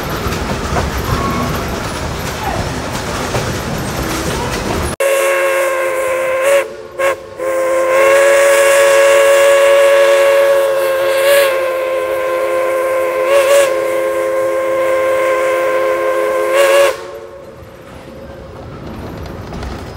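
A steam train running with a steady rumble. About five seconds in, the steam locomotive's chime whistle sounds, several notes together: two brief breaks near the start, then a long blast of about nine seconds that cuts off, leaving a quieter rumble of the moving train.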